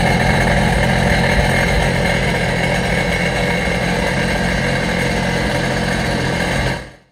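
Sea-Doo GTX 215's supercharged Rotax 1503 three-cylinder four-stroke engine idling steadily, fading out near the end.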